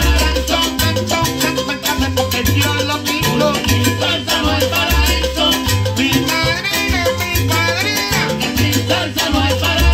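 Live salsa band playing: trombones, keyboard, upright bass, congas and timbales in a steady, driving dance rhythm.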